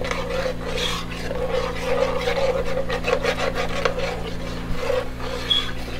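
Metal spoon stirring and scraping across the bottom of a pot of stew base freshly deglazed with chicken stock, loosening the browned bits in quick rasping strokes, over a steady low hum.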